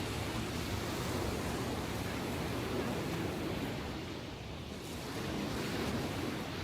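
Ocean waves breaking and washing in, a steady rush of surf that eases slightly about four seconds in and builds again, with some wind on the microphone.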